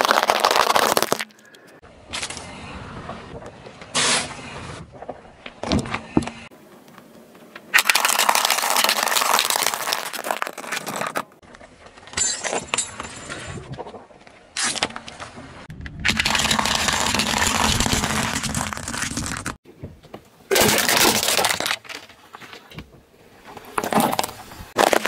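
A car tyre rolling over and crushing a succession of small objects on asphalt, among them piles of small plastic balls and a plastic jingle-bell toy. The clips follow one another with loud cracking, popping and crunching, and quieter pauses between.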